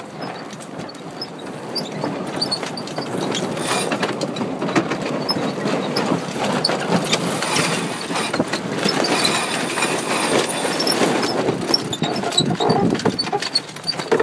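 Sailboat sheet winch being cranked with a winch handle, its pawls ratcheting in a rapid, continuous clatter as the sheet is trimmed in.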